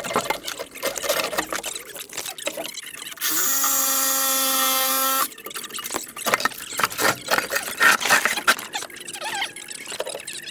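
A power tool runs at a steady, even pitch for about two seconds, starting about three seconds in. Scattered clanks and knocks of metal parts and hand tools being handled come before and after it.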